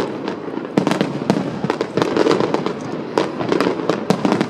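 Aerial fireworks display going off: a dense, rapid run of overlapping bangs and crackling bursts, loud and without a break.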